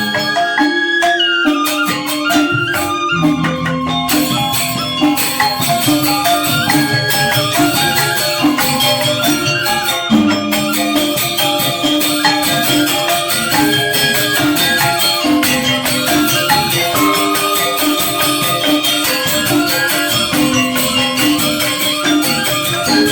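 Balinese gamelan angklung ensemble playing, with four-tone reong gong-chimes and bamboo grantangan. The pitched melody moves over a dense, fast stream of struck strokes at a steady level.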